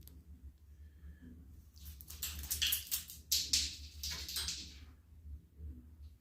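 Bottle caps clattering and scraping across a hard surface as a cat bats at them, in a busy burst of clicks lasting about three seconds from about two seconds in.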